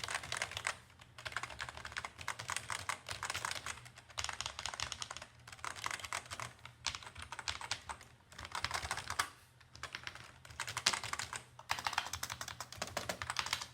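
Typing on a Logitech G213 keyboard's membrane keys: fast runs of key clicks in bursts, with brief pauses between them. A steady low hum runs underneath.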